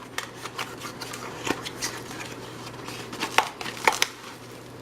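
Hands opening a small box and its packaging: a string of irregular clicks, taps and crinkles, with two sharper clicks a little over three seconds in.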